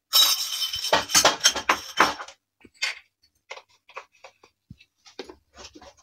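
Mango pieces scraped and dropped from a glass bowl into a stainless-steel mixer-grinder jar: a rustling scrape with a quick run of clinks and knocks over the first two seconds, then scattered light taps and clicks as the jar and its lid are handled.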